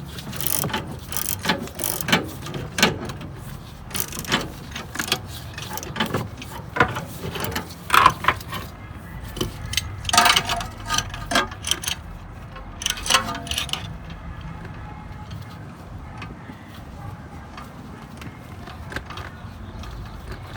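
Metal hand tools clicking and clanking against a car's rear brake caliper assembly as it is taken off, irregularly for the first fourteen seconds or so, then much quieter with only a few faint clicks.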